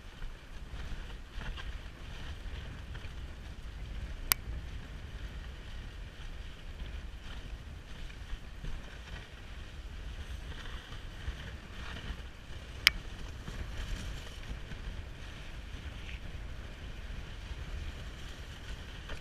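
Dog sled running over packed snow: a steady rumble and hiss from the runners, with wind on the microphone. Two sharp clicks, one about four seconds in and one about two-thirds of the way through.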